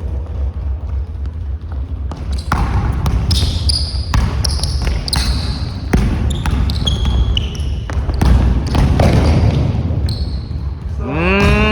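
A basketball being dribbled and bounced on a gym floor, giving a string of sharp knocks, with brief high sneaker squeaks in the middle and a short rising squeal near the end.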